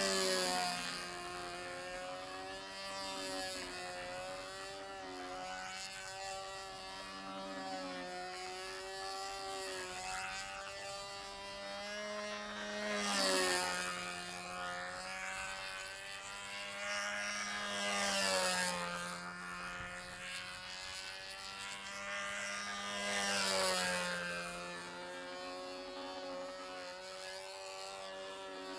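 Control-line stunt model airplane buzzing steadily as it flies circles on its lines, its pitch and loudness swelling and falling each time it passes close, most strongly about 13, 18 and 23 seconds in.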